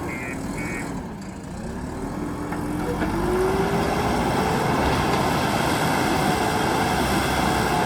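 JCB 3DX Super backhoe loader's diesel engine working, its revs dropping about a second in, climbing again over the next couple of seconds and then holding steady. A few short high beeps sound at the very start.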